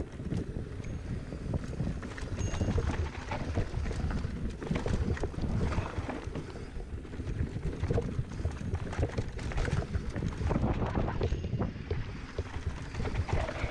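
Mountain bike riding a dirt trail, with wind buffeting the microphone in a steady low rumble and the tyres and bike clattering over the ground in many short, irregular clicks and rattles.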